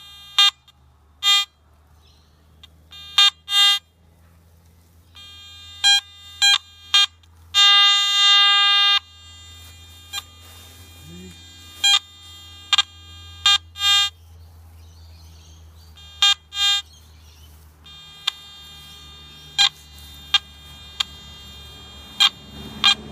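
Garrett metal detector giving short beeps at irregular intervals as the coil passes over a buried coin, which turns out to be a penny. Around eight seconds in it holds one tone for about a second and a half. A low steady hum runs underneath.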